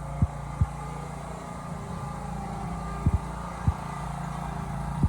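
Riding lawn mower engine running steadily under load as it tows a strapped log, with a few short low thumps along the way.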